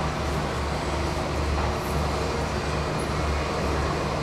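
Airbus A320's jet engines idling as the airliner taxis in to the gate: a steady low rumble with an even hiss above it.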